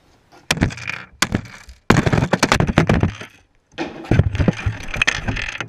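Hard objects being smashed with heavy blows, cracking and breaking. Two separate hits come in the first second and a half, then two fast runs of cracking blows with a short break between them.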